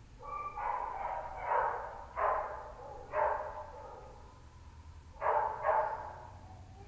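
A kennelled shelter dog barking: about six sharp barks, four in the first half and two close together near the end, with a pause of about two seconds between them.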